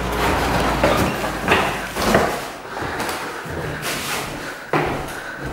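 Footsteps and a few irregular dull knocks on the old wooden floorboards and stairs of a house, over a low rustle.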